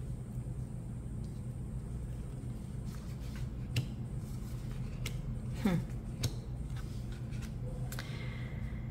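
Tarot cards being dealt onto a table: a few soft taps and slides as cards are laid down one by one, over a steady low room hum.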